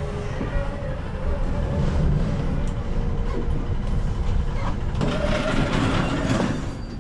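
Steady low rumble with faint, indistinct voices, and a louder rush of noise about five seconds in that lasts a second and a half.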